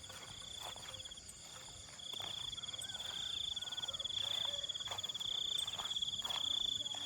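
Insects trilling: a steady, finely pulsed high trill that breaks off about a second in and picks up again about two seconds in.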